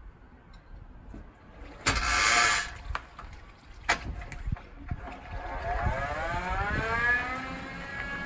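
Electric-converted Suzuki Jimny: a harsh gearbox grind about two seconds in as a gear is forced home, a couple of clunks, then the electric drive motor's whine rising in pitch as the vehicle pulls away and levelling off near the end.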